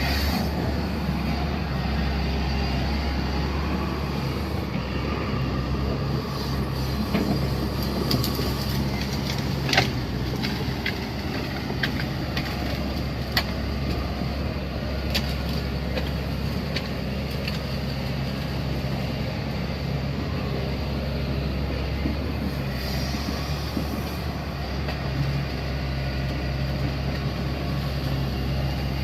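Heavy road-construction machine engine running steadily, with a few sharp clicks and knocks partway through.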